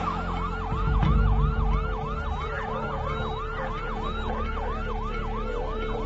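A siren in fast yelp mode, rising and falling about three and a half times a second, over a low rumble.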